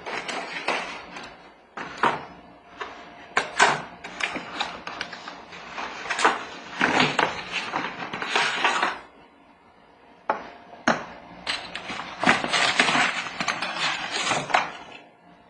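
Handling of unpacked kayak-mount parts on a wooden floor: a series of sharp knocks and clatter from the aluminum arm and plastic pieces, with two longer stretches of scraping and rustling as the cardboard box is moved, the second near the end.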